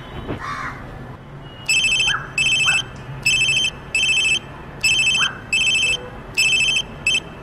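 Telephone ringing with an electronic double ring, four pairs of rings starting about two seconds in. The last ring is cut short as the call is answered.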